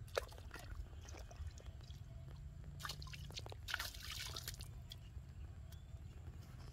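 Water splashing in the shallows as a fish is hauled in on a handline, in two bursts about three and four seconds in. A sharp tap just after the start.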